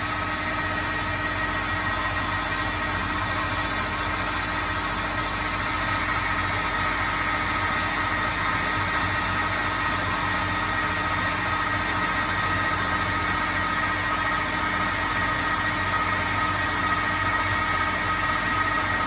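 A ProtoTRAK CNC lathe running its spindle at 950 RPM while a carbide insert takes a finish cut along a metal propeller shaft: a steady machine hum with a few constant whining tones.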